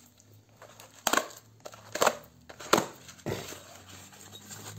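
A knife cutting through packing tape and cardboard on a small box: four short, sharp cuts, the first about a second in and the rest following at under a second apart.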